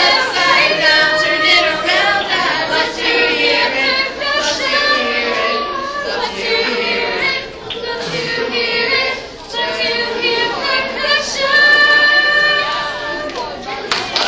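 Youth choir, mostly girls' voices, singing together without instruments, ending on a long held note near the end.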